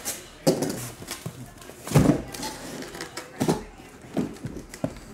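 Sealed trading-card hobby boxes being pulled out of a cardboard shipping case and set down on a table: a handful of separate knocks and thuds, the loudest about two seconds in.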